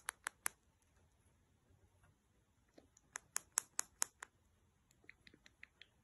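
Cockatiel clicking its tongue: short, sharp clicks in bursts, a few at the start, a quick run of about six around three seconds in, and a softer run near the end. The clicking is the bird's bid for attention.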